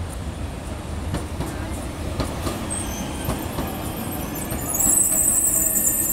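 A city tram passing close by on street rails: a low rumble of wheels on track with scattered clicks. About five seconds in it grows louder and high-pitched wheel squeal sets in.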